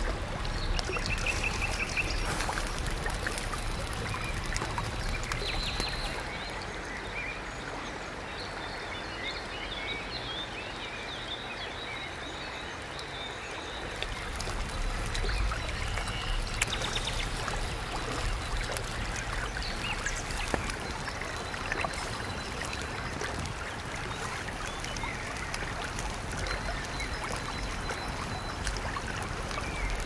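Steady rush of running river water, with the light crackle of a wood fire and birds chirping over it. The sound goes quieter and duller for several seconds a little way in, then returns.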